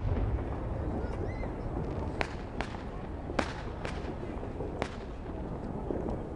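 Fireworks going off: a low rumble dies away at the start, then five sharp bangs come between about two and five seconds in.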